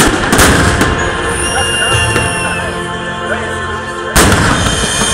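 Aerial firework shells bursting: several sharp bangs in the first second, then a loud one about four seconds in.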